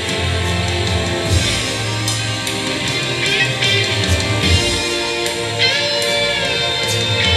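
Live worship band playing a song: electric and acoustic guitars over a drum kit and keyboard, with a steady beat.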